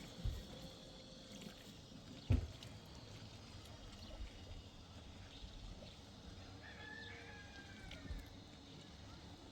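Faint water pouring and trickling, with one sharp knock a little over two seconds in.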